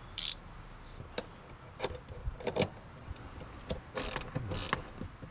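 Scattered clicks, knocks and rattles of tools and metal seat hardware being handled inside a car, with a short cluster of rattling about four seconds in.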